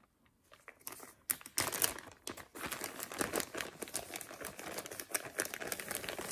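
Clear plastic zip bag crinkling and crackling as hands open it and handle the lace pieces inside. It starts about a second in and goes on as a dense, irregular crackle.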